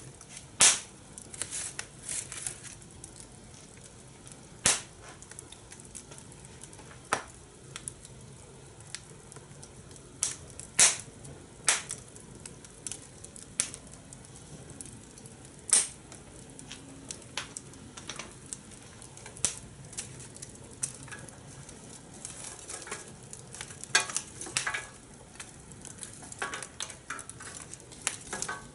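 Fire in a fire pit crackling, with sharp pops at irregular intervals, a few of them much louder than the rest, over a faint steady hiss.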